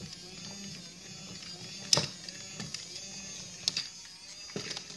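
Battery-powered toy walking robot running: its small electric motor and gearbox whir steadily as it walks, with three sharp plastic clacks, the loudest about two seconds in.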